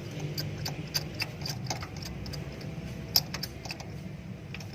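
Small irregular clicks and ticks of tools and metal parts being handled in repair work, over a low steady hum; the sharpest click comes about three seconds in.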